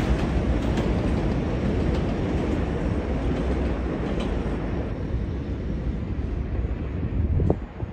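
New York City subway 4 train running on the rails, a steady low rumble with a few faint clicks that slowly fades, then drops off abruptly near the end.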